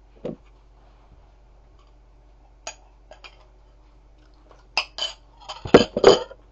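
Light clinks and knocks of hard objects handled: one just after the start, a few scattered in the middle, then a quick run of louder clinks near the end, over a faint steady hum.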